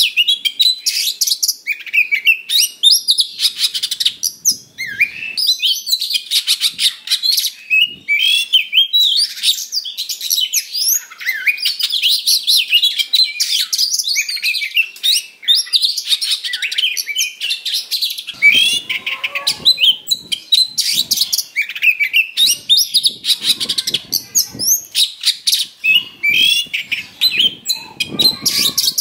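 An oriental magpie-robin singing without a break: a fast, varied torrent of whistles, trills and harsh chattering packed with mimicked phrases, the aggressive, full-on song of a bird in fighting mode. Rougher, lower notes come in about two-thirds of the way through.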